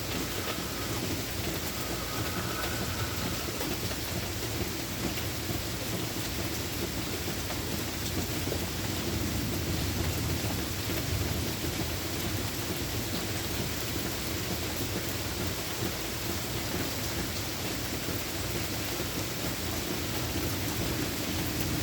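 Steady heavy rain, with a low rolling rumble of thunder underneath that swells near the middle.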